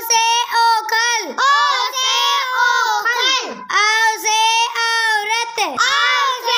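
A child singing a Hindi alphabet song in a high voice, phrase by phrase with brief breaks between lines.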